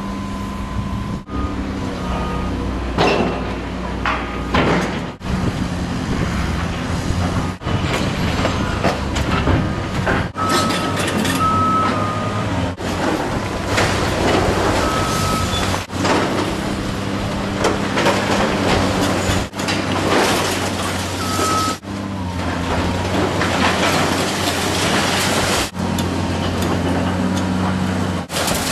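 Diesel engine of a hydraulic excavator running steadily while it tears into a building, with crunching and scraping of debris. A few brief high-pitched squeals rise above it, and the sound breaks off and changes abruptly every few seconds.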